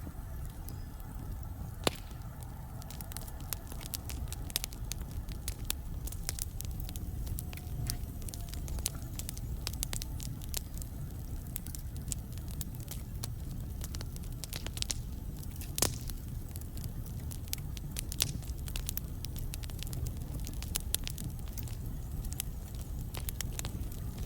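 Wood logs burning in a fireplace, crackling with frequent sharp pops over a steady low rumble of the flames. Two louder pops stand out, about two seconds in and about two-thirds of the way through.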